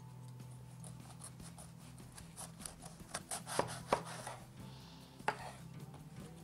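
Kitchen knife cutting an eggplant into wedges on a wooden chopping board: a run of light cuts and taps, with a few sharper knocks of the blade on the board about halfway through and again near the end.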